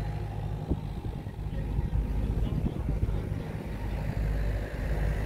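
Steady low hum of an engine running, over general outdoor background noise.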